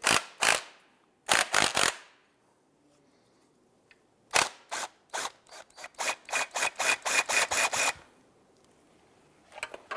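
Cordless drill spinning a socket on a strut's top shaft nut, run in short trigger pulses to loosen and back the nut off while the coil spring is held compressed. It comes in a few short bursts near the start, then a quick string of about a dozen pulses.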